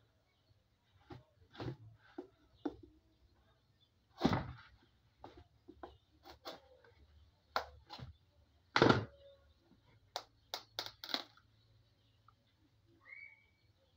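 Kitchen knife cutting through a raw butternut squash in a plastic basin: a string of irregular cracks and knocks as the blade splits the hard flesh. The two loudest come about four and nine seconds in, with a quick run of sharp ticks a little after ten seconds.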